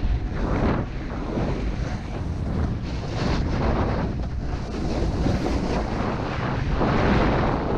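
Wind buffeting an action camera's microphone during a snowboard run, over the hiss of the board sliding on snow. The hiss swells and fades every second or two.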